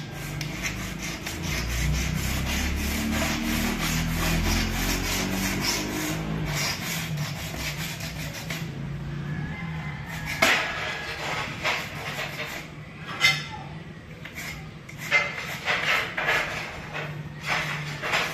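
Utility-knife blade scraping along the back of a porcelain tile, scoring a cut line: quick strokes close together at first, then separate sharp scrapes in the second half. A low hum runs under the first few seconds.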